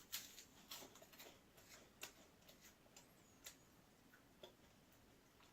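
Faint, irregular crisp clicks of someone chewing Banana Kick corn puffs with the mouth closed.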